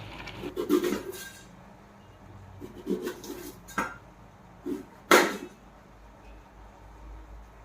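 Kitchen pots and utensils clattering: a series of separate knocks and clinks, the loudest a sharp metallic clank about five seconds in.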